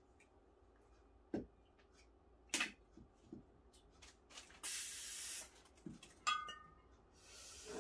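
Coravin Model Three wine dispenser releasing short bursts of nitrogen gas: a loud hiss lasting under a second about halfway through, and a fainter one near the end. A few small handling clicks come earlier, and a light glassy clink about six seconds in.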